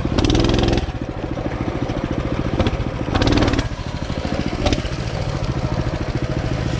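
Small single-cylinder mini bike engine running with an even, pulsing beat, revved up briefly twice: once right at the start and again about three seconds in.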